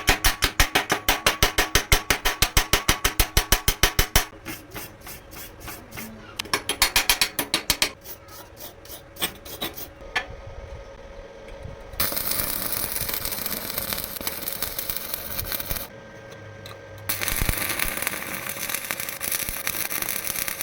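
Metalworking sounds: fast, even strokes of a tool on metal, about six or seven a second, for the first four seconds, then a few scattered strokes. Two stretches of steady hissing noise follow, from about halfway and again near the end.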